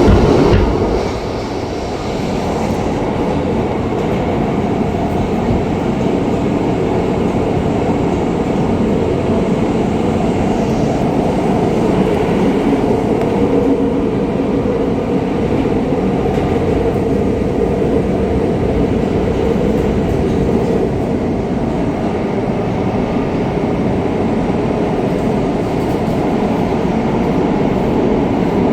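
New York City Subway J train running, a steady loud rumble of wheels on rail with a droning hum, heard from on board. The rider calls it a weird track and tunnel noise of unknown cause.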